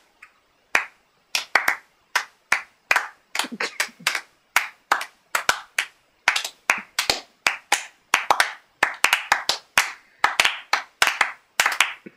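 A handful of people clapping their hands, out of step with one another, several claps a second, growing denser and overlapping about eight seconds in.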